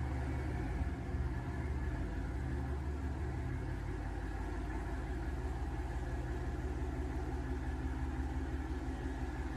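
A large motor yacht's diesel engines running at a steady low rumble while manoeuvring, with the hiss of propeller wash churning the water.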